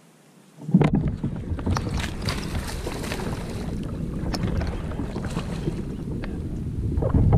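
Wind buffeting the microphone, with scattered knocks and rattles, cutting in abruptly from near silence under a second in.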